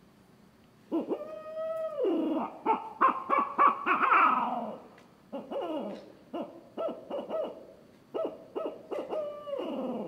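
Wooden tube owl hooter call blown to imitate a barred owl. It opens about a second in with a long held hoot that drops at the end, then a quick run of short rising and falling hoots. After a brief pause comes a second series of hoots, ending in a long hoot that falls away.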